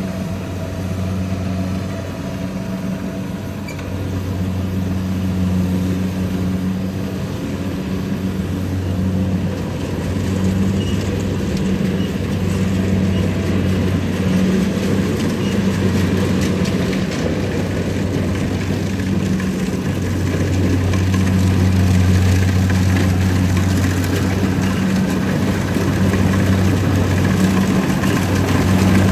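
Rice combine harvester's diesel engine running steadily under load, a low hum that swells and eases, over the rattling noise of the machine at work. It grows a little louder past the middle.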